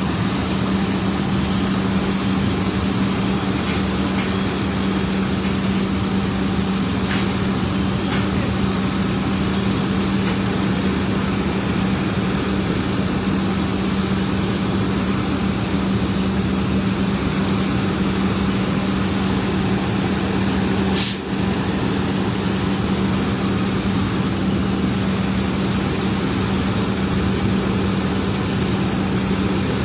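Heavy truck engine running steadily with a constant hum, typical of a fire engine at a fire call. About two-thirds of the way through there is a brief high hiss.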